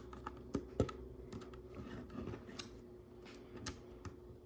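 Small LEGO plastic pieces clicking and tapping as smooth tiles are handled and pressed onto a build: scattered light clicks, several a second at times, over a faint steady hum.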